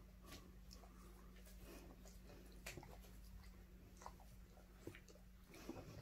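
Faint gnawing: a beagle chewing a spiky rubber dumbbell toy, with scattered soft clicks of teeth on the rubber over a low steady hum.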